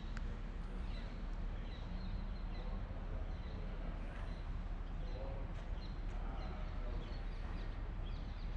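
Steady outdoor background noise with a low rumble and scattered faint high chirps, like small birds.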